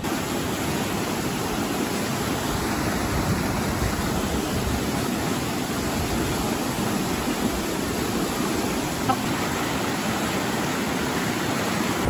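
Swollen, fast-flowing mountain river rushing over rapids: a steady, even rush of water noise.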